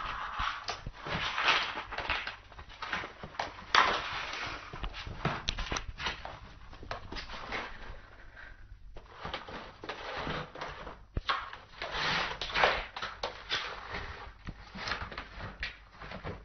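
A cardboard box scraping and rustling across a tile floor as a cat shoves its head and body into a hole in it. Irregular scuffing runs throughout, broken by sharp knocks against the cardboard.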